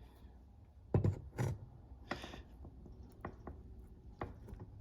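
A Knipex pliers wrench clamped on a penny and pressed against a tabletop: two sharp knocks about a second in, a short scrape, then a few lighter clicks.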